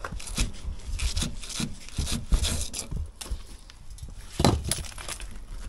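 Shovel scraping over paving and scooping broken brick rubble, with irregular knocks and clinks of bricks and brick fragments; a heavier knock about four and a half seconds in.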